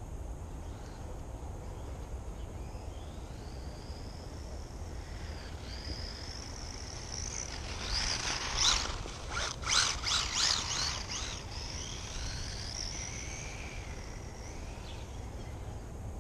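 Electric motor whine of a WLtoys A959-B 1:18-scale RC buggy, rising and falling in pitch as it speeds up and slows down, loudest around eight to eleven seconds in as it comes close.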